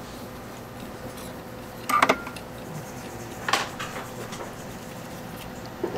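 Short clinks and clatters of small hand tools being handled and set down on a phone-repair bench: one about two seconds in and another about a second and a half later, over a faint steady hum.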